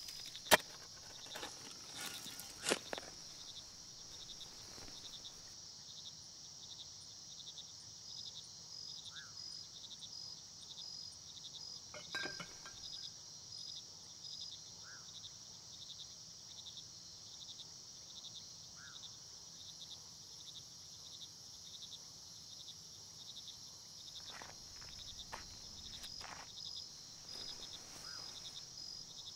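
Crickets chirping steadily in a quiet night ambience, with a sharp click about half a second in, another a couple of seconds later, and a few softer ticks near the end.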